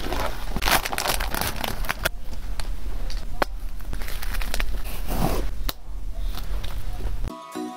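Plastic packaging crinkling and crackling as hands open a heart-patterned bubble mailer and handle plastic card sleeves, with many sharp clicks. Near the end it cuts to a music track with a chime-like tune.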